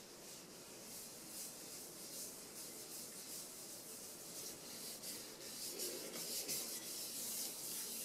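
Paper towel rubbing around the inside of a stainless steel frying pan in quick repeated wiping strokes, louder in the second half.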